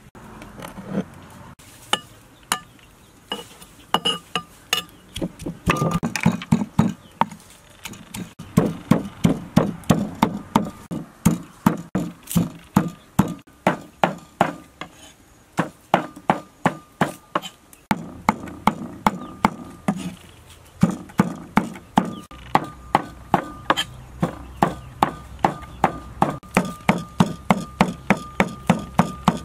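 Cleaver chopping meat on a wooden chopping board, with rapid, steady knocks of about three a second. The strokes are sparse at first and come in a dense run after the first several seconds, with one short break.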